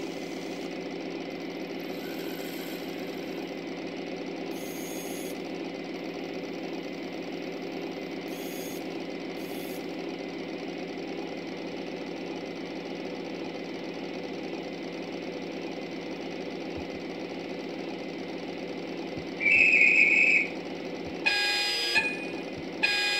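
LGB model train running its sound effects: a steady electric hum. About three-quarters of the way in comes a high single toot lasting about a second, then near the end a few short, loud whistle blasts.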